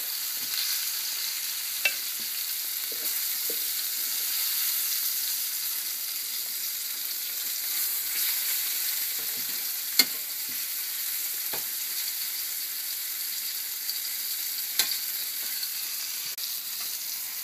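Floured chicken pieces sizzling in hot oil in a stainless steel skillet, a steady frying hiss. A few sharp clicks of metal tongs against the pan cut through it, the loudest about ten seconds in.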